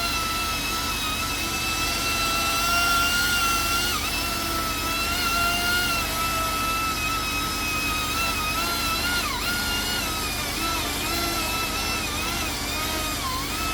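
Chainsaw running at a steady high whine while cutting into the felled tree's wood, its pitch dipping briefly several times in the second half as the chain bogs down in the cut.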